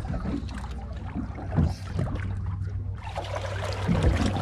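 Water lapping and slapping against the hull of a drifting fishing boat over a steady low rumble, with a few short knocks, the loudest about a second and a half in and near the end.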